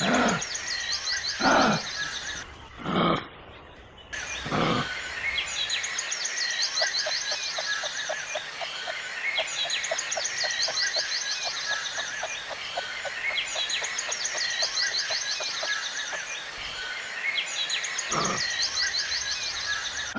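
A wild animal calling loudly four times in quick succession, each call sweeping steeply down in pitch, then once more near the end. Between the calls, a fast, even ticking chorus and a high trill that repeats every few seconds, as of birds and insects in the background.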